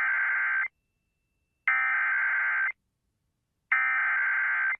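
Emergency Alert System SAME data header: three bursts of buzzing two-tone digital data, each about a second long with a second of silence between. This header marks the start of an alert and carries its coded message, here a severe thunderstorm warning.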